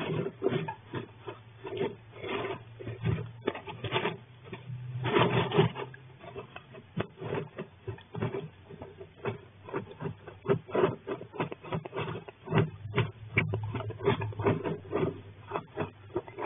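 A flying squirrel scratching and rustling in loose wood shavings on the floor of a wooden nest box: a dense, irregular run of small scratches and clicks, with a longer, louder rustle about five seconds in.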